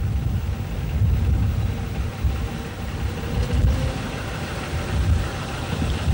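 Gardner diesel engine of a County Donegal Railway articulated railcar running with a low, uneven rumble. It is the recorded voice of preserved railcar No. 18, laid over the film as a sound effect.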